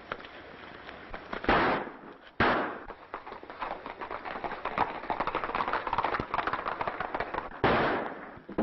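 Gunshots: two sharp echoing shots about a second apart, then a third near the end. In between is a fast, dense patter of galloping horses' hoofbeats.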